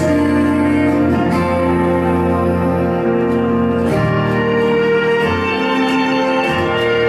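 Instrumental background music with sustained string-like tones, the chords changing every second or so.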